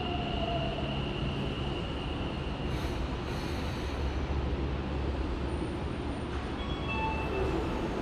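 Tokyo Metro 10000 series subway train pulling into an underground platform and braking to a stop. A high steady whine fades out in the first few seconds, giving way to low wheel-and-track rumble, with brief high squeals near the end as it halts.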